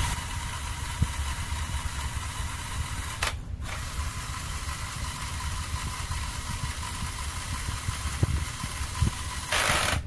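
Lego Power Functions XL motor whirring through plastic gearing. It stops for about half a second a little over three seconds in, then runs again, briefly louder near the end.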